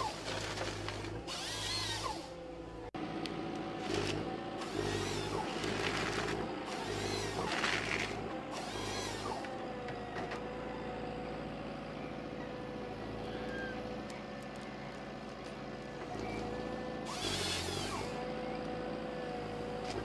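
Forestry harvester running with a steady engine and hydraulic whine, broken by several loud, noisy bursts of the harvesting head gripping, feeding and cutting timber.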